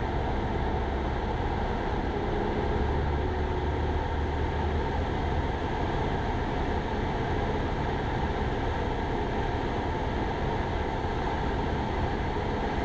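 Steady drone of a Cessna 172 Skyhawk's piston engine and propeller in cruise, heard as cabin noise through the cockpit intercom.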